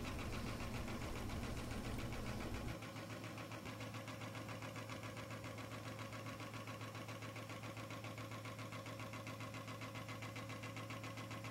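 Small model Stirling hot-air engines running, a quiet, steady mechanical patter with a fast regular pulse. A low hum under it drops away about three seconds in.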